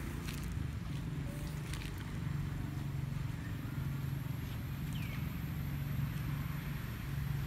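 A steady low engine-like hum in the background, with a few light rustles early on and one short, high, falling squeak about five seconds in.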